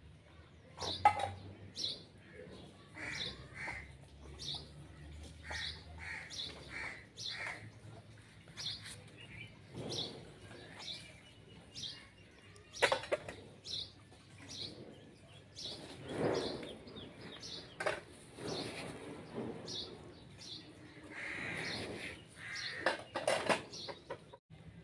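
Farmyard birds calling: short high chirps about once or twice a second, with louder, lower calls every few seconds.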